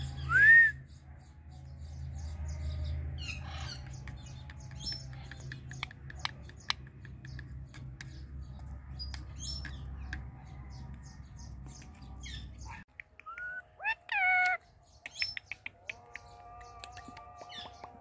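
Indian ringneck parrot calling: one loud rising squawk about half a second in, scattered faint chirps, and a few short calls that bend up and down near the end.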